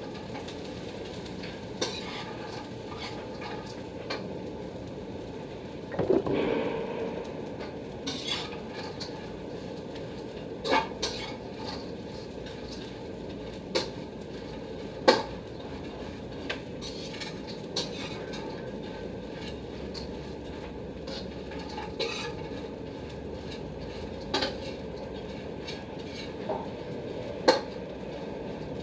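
A metal spatula stirring dried anchovies frying in a metal pan: irregular clinks and scrapes of the spatula against the pan over a steady frying hiss.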